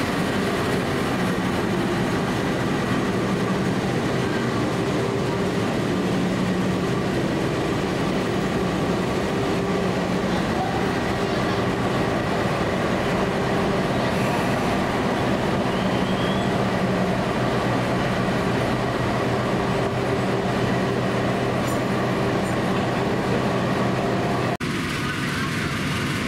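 A passenger train hauled by a KAI CC 206 diesel-electric locomotive pulls out past the platform. Its coaches roll by over a steady diesel drone. Near the end the sound changes abruptly.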